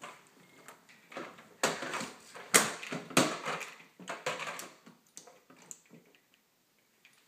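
A run of knocks, clatters and rustles, loudest about two and a half and three seconds in, then dying away to a few light clicks.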